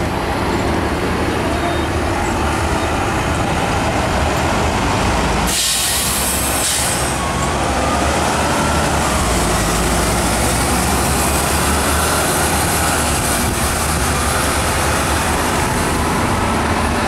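Double-decker diesel buses running and pulling away, engines steady, with a sharp air-brake hiss about five and a half seconds in that lasts a second or so. A faint whine rises and falls a little later as a bus drives off.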